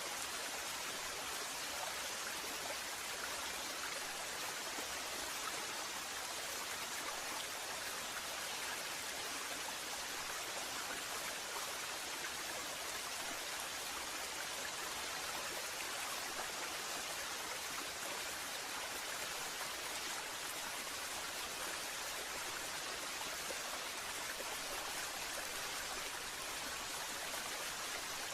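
Waterfall: a steady, unbroken rush of falling water, with no birdsong over it.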